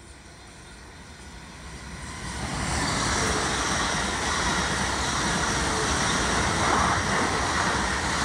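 Blue South Western Railway Siemens Desiro electric multiple unit passing at speed: the rush of wheels on rail builds over the first three seconds, then holds loud as the carriages go by, with a thin high whine over it.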